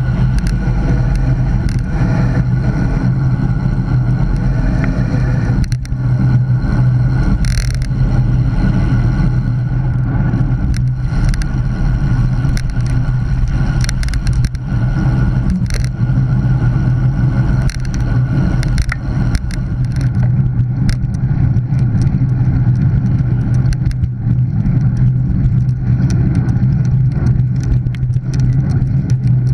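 Wind rushing over a bike-mounted action camera during a fast road-bike ride, a steady low rumble with scattered clicks and knocks.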